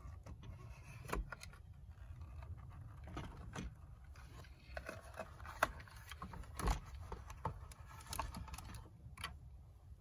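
The plastic tender body of a G-scale model locomotive being handled and lifted off its frame: scattered light clicks, knocks and scrapes of plastic parts and wires, with a louder knock about two-thirds of the way through.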